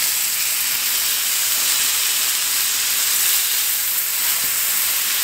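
Thin, oil-coated ribeye steak sizzling steadily as it sears in a smoking-hot frying pan, an even, bright hiss.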